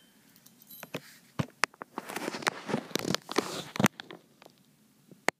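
Handling noise as a silver coin and a cast silver bar are moved about: scattered light clicks and stretches of rubbing and scraping, with one sharp click near the end.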